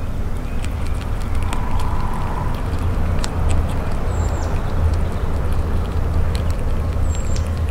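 Gray squirrel eating a peanut close by, its chewing heard as small sharp clicks, over a steady low rumble. Two short high chirps come about four and seven seconds in.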